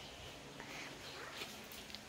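Faint rustling and handling noise from searching about, with a couple of light taps about one and a half seconds in.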